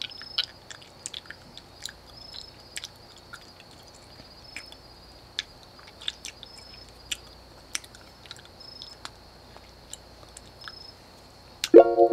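Night ambience of insects trilling steadily with short repeated chirps, under irregular wet smacking and squelching sounds. Near the end a harp comes in, its plucked notes pulsing quickly.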